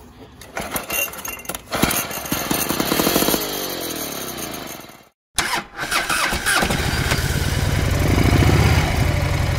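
Lawn-Boy EasyMulch two-stroke mower engine being pull-started. It catches after about two seconds of knocking, runs, then winds down with falling pitch and stops. After a brief break it runs again, loud and steady, loudest near the end.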